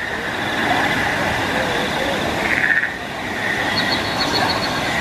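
Steady outdoor ambience: a continuous rushing noise under a high, shimmering chirr, which swells briefly about two and a half seconds in, with a rapid pulsing chirp near the end.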